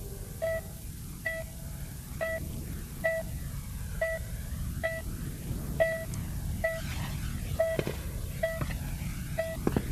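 Patient heart monitor beeping steadily: a short single-pitch beep repeating evenly a little more than once a second, over a low steady rumble.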